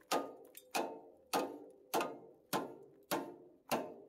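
Hammer striking steel in a steady series of seven blows, about three every two seconds, each followed by a short metallic ring.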